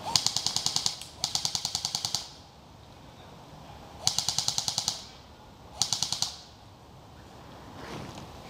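Airsoft gun firing on full auto in four short bursts of rapid, evenly spaced shots, about a dozen a second. There are two bursts back to back at the start, then a pause, then two more.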